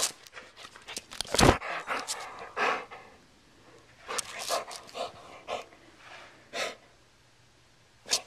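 A dog panting and sniffing close to the microphone in short, irregular bursts, with a loud thump about a second and a half in.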